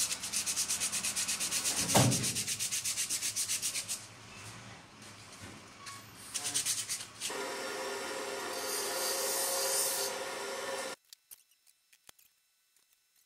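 Hand sanding on the metal intake-port flange of a Polaris SLT780 waverunner engine block, in quick, even back-and-forth strokes, with a sharp knock about two seconds in. The rubbing eases off at about four seconds, a steadier scraping picks up later, and it cuts off suddenly near the end.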